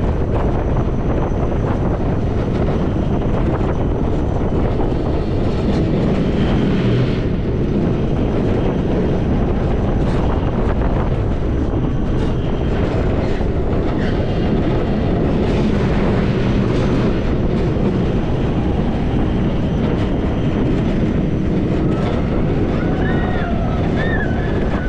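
Wind buffeting the microphone over the steady rolling rumble of a Wiegand coaster kart running on its rails, with occasional rattles. Near the end come a few short, high squeals.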